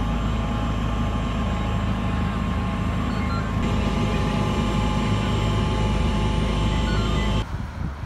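Steady low engine drone with several faint steady tones above it. It cuts off abruptly near the end.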